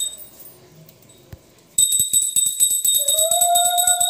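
Puja hand bell rung rapidly, starting suddenly about two seconds in, joined about a second later by a woman's high, steady ululation (ulu).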